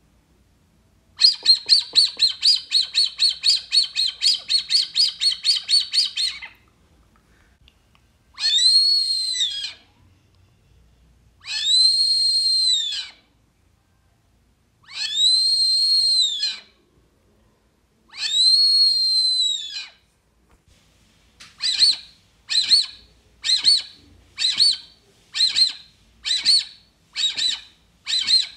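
Wooden Brazilian teal (marreca ananaí) duck call blown to imitate the duck's whistle. It starts with a fast run of short whistles, about four a second for five seconds, then gives four long whistles that rise and fall in pitch, then a steady series of short whistles a little more than one a second.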